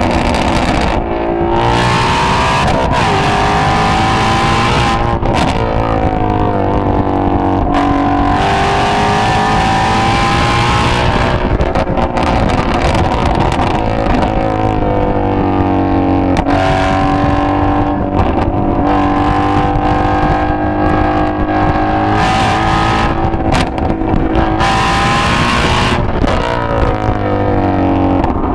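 2017 Shelby GT350's 5.2-litre flat-plane-crank V8 running under way while the car is driven, its note rising and falling repeatedly with the revs.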